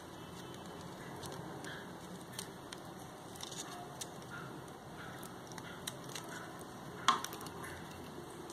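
Scattered light clicks and taps of small camera parts and tools being handled, the loudest click about seven seconds in, over a steady low hiss.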